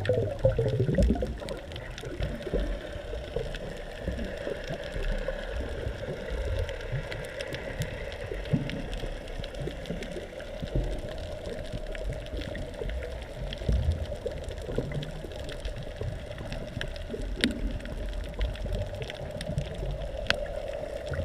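Underwater ambience: a steady wash and gurgle of water with a low churning rumble, a constant mid-pitched hum and scattered faint clicks.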